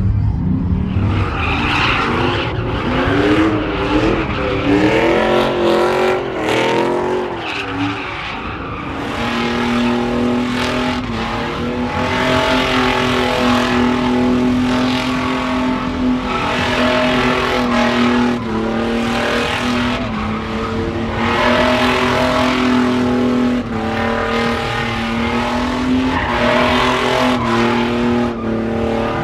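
A truck doing donuts: its engine revs high, the pitch swinging up and down for the first several seconds, then is held at steady high revs from about nine seconds in, with the tyres spinning and skidding.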